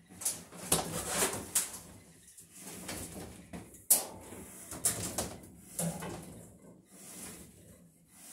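Irregular scrapes, rustles and light knocks as electrical cable is handled and pulled along wooden wall studs during rewiring.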